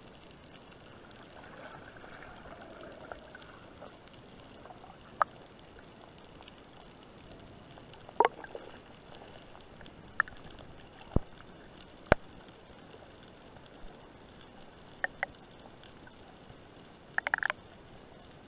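Muffled underwater ambience heard through an underwater camera during a freedive: a steady low hiss broken by scattered sharp clicks and knocks, with a quick cluster of them near the end.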